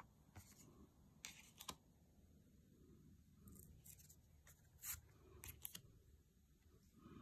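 Faint handling of fortune-telling cards: stiff cards sliding off the top of the deck one after another, with a handful of small clicks and ticks as each card is moved.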